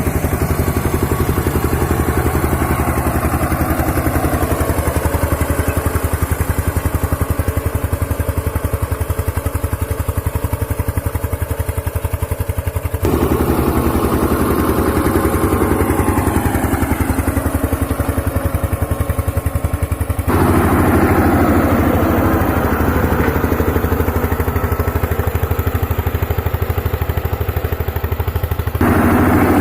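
Farm tractor engine running steadily with an even firing beat. Its tone jumps abruptly three times as one shot cuts to the next.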